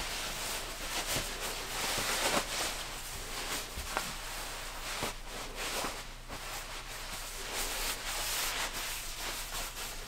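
Rustling of a lightweight nylon down vest as it is handled and pulled on, the shell fabric rubbing and crinkling, with a few soft clicks.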